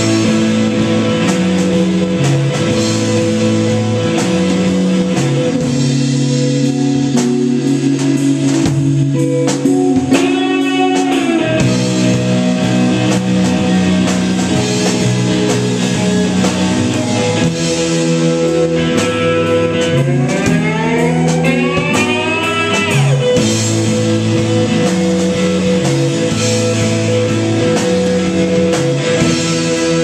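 A live instrumental rock band playing: electric guitars over a drum kit, with held, repeating chord patterns. A note glides up in pitch briefly about a third of the way in, and again more slowly a little past the middle.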